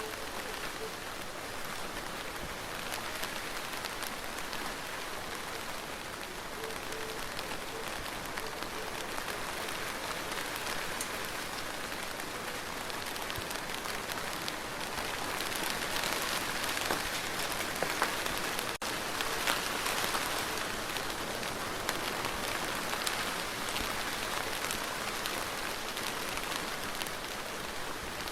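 Steady rain falling, a dense patter of many individual drops, growing a little heavier for a few seconds past the middle.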